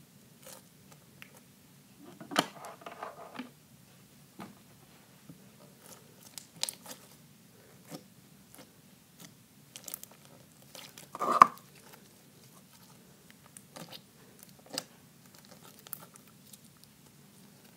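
Hands squishing, poking and stretching white slime studded with small beads, making scattered wet clicks and pops. There is a quick run of clicks about two seconds in, and the loudest pop comes about eleven seconds in.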